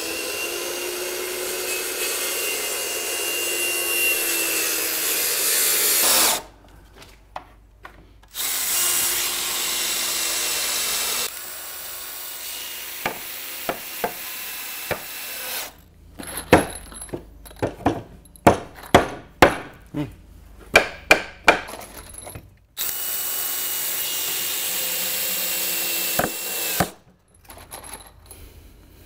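Power drill driving long self-drilling screws into softwood boards, in several steady whining runs of a few seconds each. In the middle comes a string of about a dozen hammer blows on nails, and a few light taps near the end.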